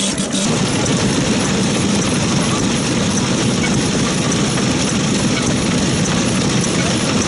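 Several vintage single-cylinder stationary farm engines running together, a steady, loud mechanical chugging.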